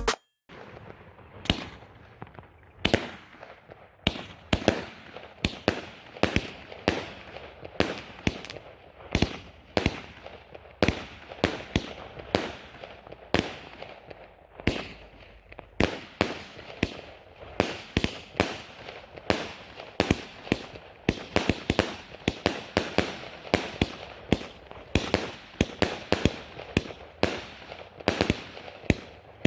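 F2 consumer firework cake (battery) firing shot after shot, with sharp bangs about two a second and short crackling tails.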